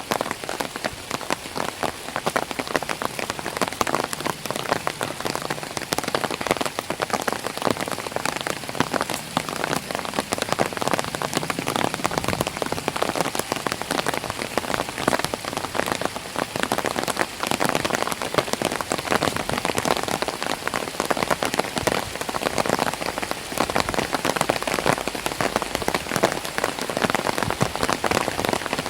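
Light rain pattering on an umbrella held overhead: a dense, steady rattle of many small drops.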